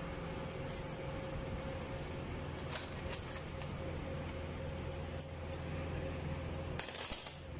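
Diesel injector test equipment running with the old, not-yet-replaced injectors under test: a steady low hum with light ticks and clinks. About seven seconds in there is a short clatter and the hum stops.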